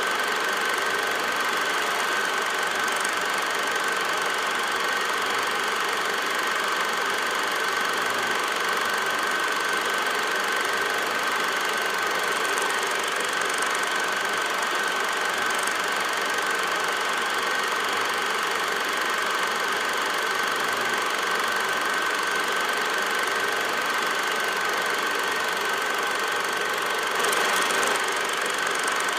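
Steady running noise of a film projector: an even whir and hiss with one constant high-pitched whine, briefly a little louder near the end.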